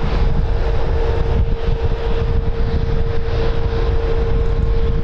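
Boeing 737 MAX's CFM LEAP-1B jet engines running near idle as the airliner taxis, a steady whine over a dense low rumble, with wind buffeting the microphone.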